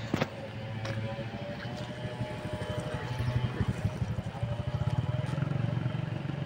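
Steady low rumble of a running small engine, with a sharp click just after the start.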